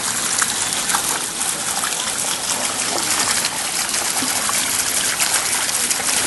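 Running water trickling and splashing steadily, a continuous rushing hiss with many small splashes.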